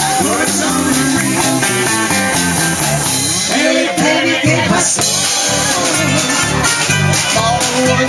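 Live band playing amplified rock-and-roll: a drum kit keeps a steady beat on the cymbals under electric guitars and bass, with a voice singing.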